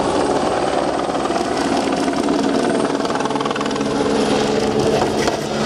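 Turbocharged rally car engine driving hard past on a gravel special stage: a steady engine note with rapid, even firing pulses.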